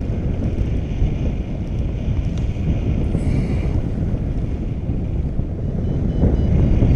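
Steady wind rushing over and buffeting the microphone of a camera on a paraglider in flight. Faint short high beeps repeat near the end.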